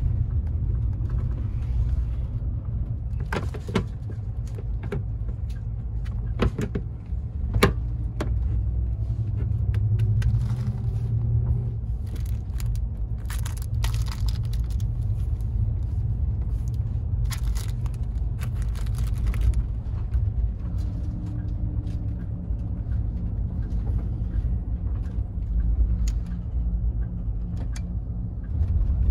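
Steady low rumble of a moving overnight highway bus, engine and road noise heard from inside a passenger compartment. A few sharp clicks come in the first several seconds, and a plastic packet crinkles twice in the middle as it is handled.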